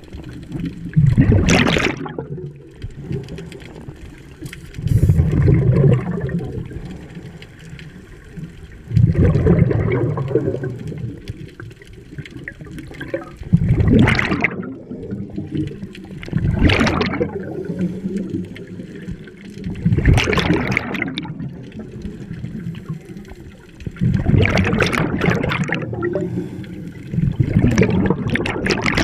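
Scuba diver breathing underwater through a regulator: a burst of bubbling exhaled air about every three to four seconds, with quieter hiss between.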